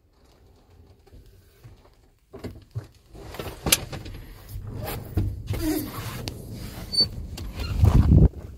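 Wheel loader cab door being worked: after a couple of quiet seconds come a series of clicks and knocks. A low rumble of wind on the microphone builds and is loudest near the end.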